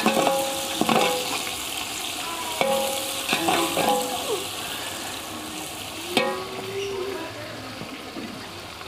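Sliced onions sizzling in hot oil in a large metal pot, with a steady hiss, while a metal spatula stirs them and knocks and scrapes against the pot several times, each knock leaving the pot ringing briefly; the loudest knock comes about six seconds in.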